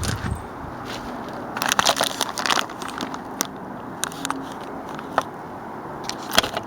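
Clicks and light rattles from hands working the loose outside door handle and its parts on a third-generation Camaro door: a quick cluster of clicks about two seconds in, then single clicks every second or so.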